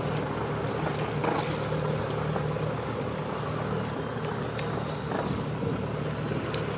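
Motor cruiser's engine running steadily at slow speed, a low even hum.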